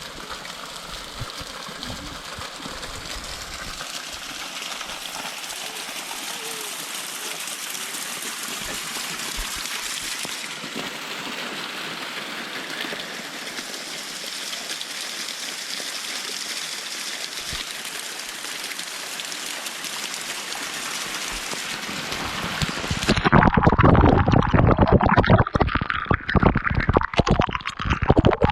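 Waterfall: a steady rush of falling water. About 23 seconds in it gives way to a louder, low, uneven rumble with irregular knocks.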